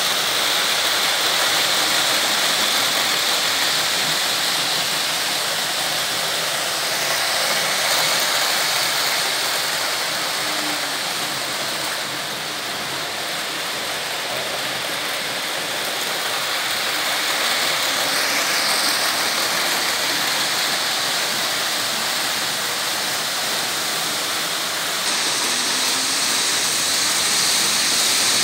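Märklin H0 model trains running on stamped-metal M-track: a steady rushing rattle of metal wheels on the hollow sheet-steel track, swelling and easing as the trains pass.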